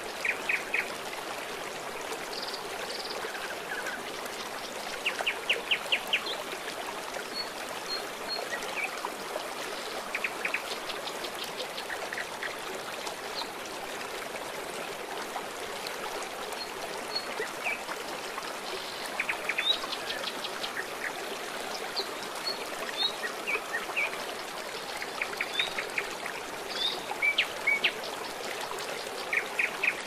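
Shallow river rushing and splashing over a stony bed in a steady, even rush of water. Birds chirp every few seconds on top, in short runs of quick, high chirps.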